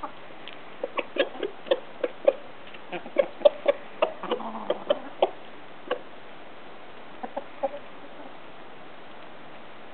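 Chickens clucking in short, sharp calls, coming thick and fast for the first six seconds, then a few more after a short pause.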